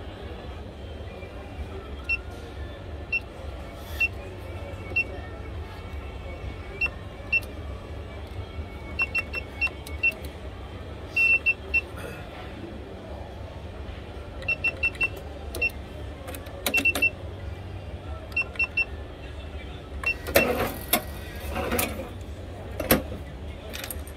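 Electronic cash register keypad beeping as keys are pressed: short, identical high beeps, single or in quick runs of two to five, over a low steady hum. A few louder clatters come near the end.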